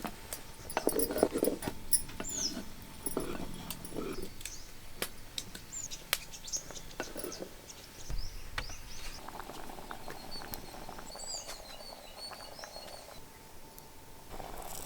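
Birds chirping in short high calls, mixed with scattered light clicks and taps.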